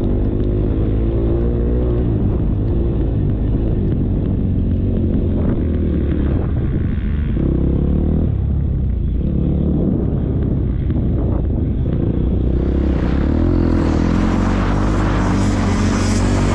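Motocross dirt bike engine revving up and falling back again and again as it is ridden hard around a dirt track. Over the last few seconds a rushing noise grows louder.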